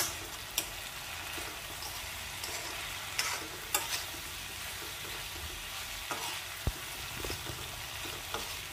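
Metal spoon stirring cut beans and potatoes in a kadhai, with a few sharp scrapes and clicks against the pan, over a steady low sizzle of frying. The powdered spices are being fried into the vegetables.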